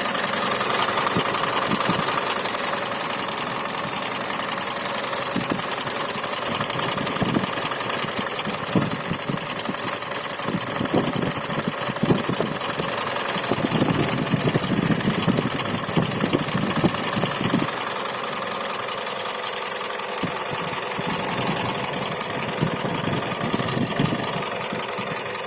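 Mitsubishi Pajero Sport engine running with a steady high-pitched whistle from the accessory belt drive. The owner suspects a worn idler pulley rather than the alternator belt, and places the sound roughly in the middle of the engine, near the oil filler cap.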